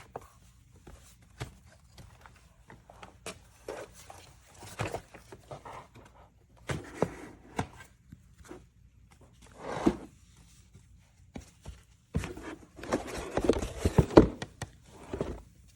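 Scattered clicks, knocks and brief rustling of something being handled, with a denser run of knocking near the end. No motor is running.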